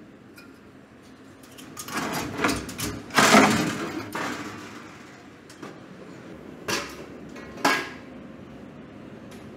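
Sheet-metal and finned-coil handling noises as a refrigeration evaporator coil is shifted and set down: a few seconds of scraping and rattling, then two sharp knocks about a second apart.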